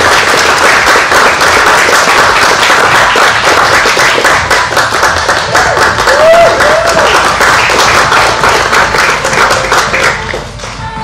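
Audience applauding with dense, loud clapping, with a couple of short whoops about six seconds in. The clapping fades near the end as background music returns.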